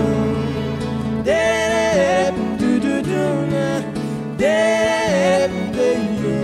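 Background music: an acoustic song with guitar accompaniment, carrying two long held melody notes between sung lines.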